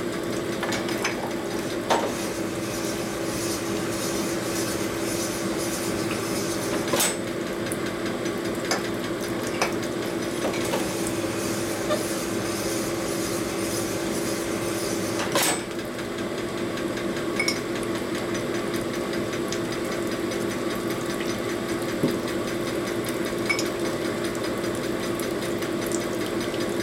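Pin-honing machine running with a steady hum while a piston's wrist-pin bore is worked back and forth over the spinning honing mandrel, honing the bore out so the wrist pin will fit. A few sharp metallic clinks sound along the way, two of them louder.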